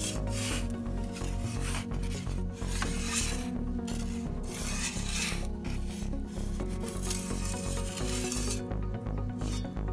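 Metal pizza peel scraping across the Ooni Pro's stone floor in several rasping strokes of about a second each as the pizza is turned, over steady background music.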